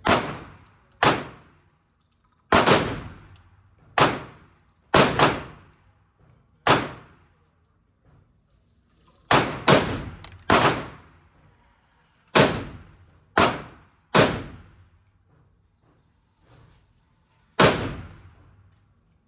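Single gunshots fired one at a time at an uneven pace, about fifteen in all, some in quick pairs and others a second or more apart. Each crack is followed by a fading echo.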